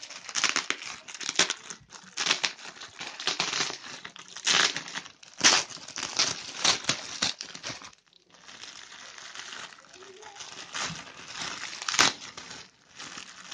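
Clear plastic bag crinkling and rustling as hands pull and squeeze at it to get it open, in irregular bursts. The rustling drops off briefly about eight seconds in, and there is one sharp crackle near the end.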